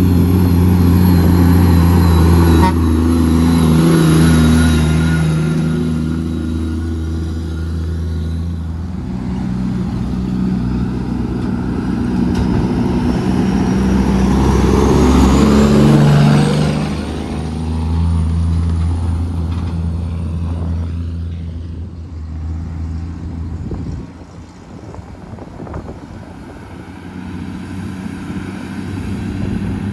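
Heavy truck's diesel engine running under way, its pitch stepping up and down every few seconds with engine speed. A high whine rises in pitch around the middle and fades out after several seconds, and the engine quietens somewhat in the last few seconds.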